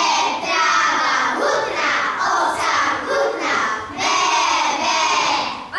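A group of children's voices calling out loudly together in unison, in long phrases.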